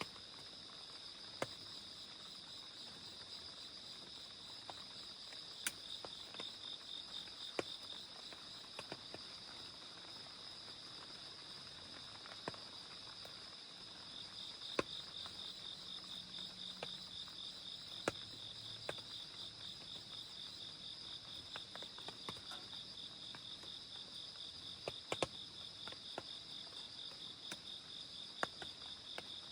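Crickets trilling steadily at two pitches, one trill becoming more strongly pulsed about halfway through. Scattered sharp taps of rain drips break in irregularly.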